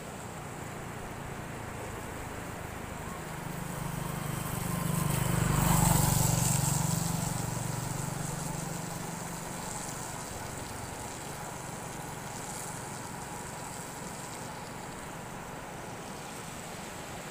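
A motor vehicle passes close by, its engine hum swelling to a peak about six seconds in and then fading away. Underneath is a steady rush of flooded river water and wind on the microphone.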